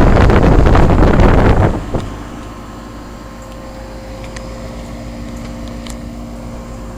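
2002 Goodman 2-ton straight-cool condensing unit running: a steady hum from the compressor and condenser fan with a few low constant tones. For the first couple of seconds a loud rush of air buffets the microphone, then drops away, leaving the unit's hum.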